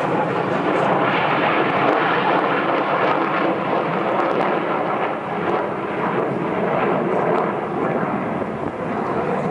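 B-2 Spirit stealth bomber's four turbofan jet engines heard during a flyby: a steady, even rush of jet noise.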